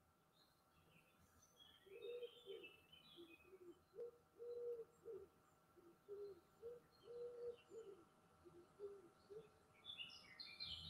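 A pigeon cooing faintly in a repeated run of short low notes, with a few small-bird chirps about two seconds in and again near the end, over a faint steady hum.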